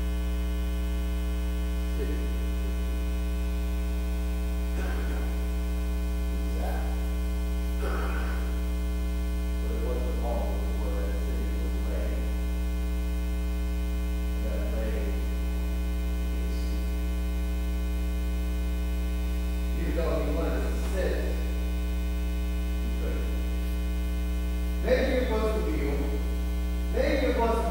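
Steady low electrical mains hum with a stack of steady higher tones above it, the loudest thing on the recording. Faint, brief snatches of a man's voice come through here and there and grow louder near the end.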